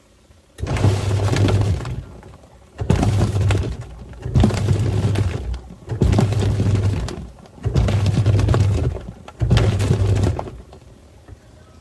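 Twin-tub washing machine agitating a load of water and toys: the motor hums and the water churns in six bursts of about a second each, stopping briefly between bursts as the wash pulsator runs in spells.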